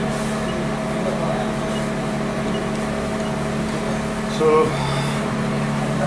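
Steady mechanical hum made of several fixed tones at an even level. A man says "So" about four seconds in.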